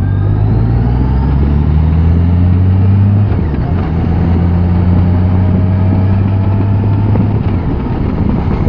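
Touring motorcycle engine pulling up the road, its pitch rising for the first three seconds, then dropping abruptly and climbing slowly again before easing off near the end. Steady wind and road rush run underneath.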